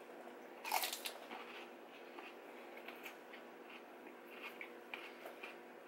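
A crisp, crunchy bite into a whole fresh cucumber about a second in, followed by scattered crunching as it is chewed close to the microphone.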